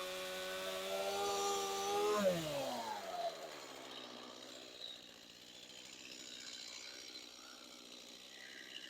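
An engine running steadily, then slowing about two seconds in, its pitch falling and settling to a lower, quieter idle.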